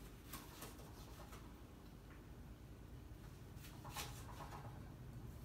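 Knife cutting carrots on a plastic cutting board: a few faint, scattered taps, the loudest about four seconds in.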